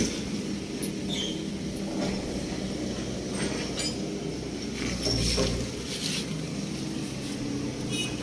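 Engine of a small compactor roller running steadily, a low even hum, with a few light clicks and short high squeaks over it.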